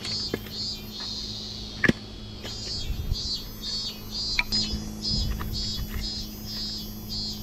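Split firewood knocking against other logs as pieces are set down and picked up from a woodpile: a sharp knock about two seconds in and a lighter one about four and a half seconds in, over a steady low hum.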